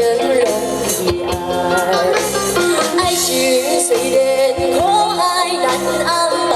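Live band playing a Mandarin pop song, with held bass notes under a woman's sung melody that wavers and glides between notes.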